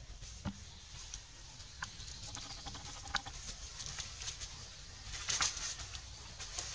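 Dry leaf litter and undergrowth rustling and crackling under moving monkeys, with scattered sharp clicks, and a denser burst of crackling near the end as a monkey moves close by.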